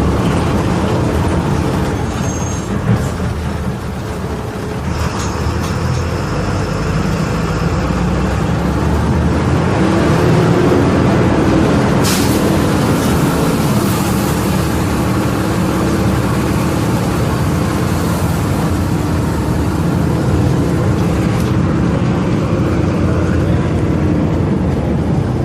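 Volvo B270F city bus diesel engine running, its pitch rising around ten seconds in as it picks up revs. Short hisses of air from the air brakes sound about twelve and fourteen seconds in.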